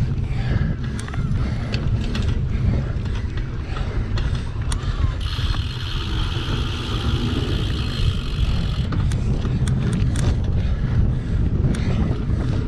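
Single-speed cyclocross bike ridden hard over rough ground, its parts rattling and clicking, under a steady rumble of wind on a GoPro microphone. A steady high hiss joins for about three and a half seconds in the middle.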